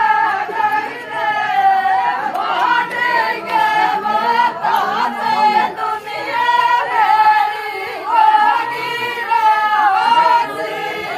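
Voices singing a Gurjar rasiya folk song with long, wavering held notes, over a faint crowd murmur.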